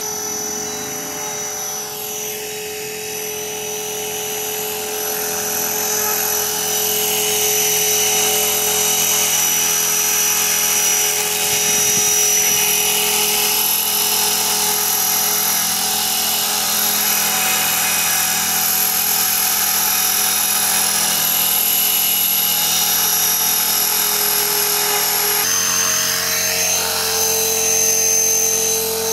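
Blade 450 3D electric RC helicopter flying low: the steady whine of its motor and gears over the whir of the rotor blades, growing louder over the first several seconds. Near the end the whine shifts in pitch.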